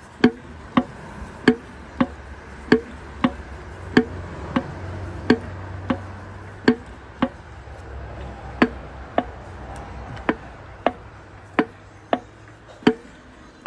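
Sharp metallic clicks, about one and a half a second, as a piston and connecting rod in a torn-down Subaru STI 2.5 engine are pushed up and down by hand: the knock of loose play in a worn connecting rod bearing.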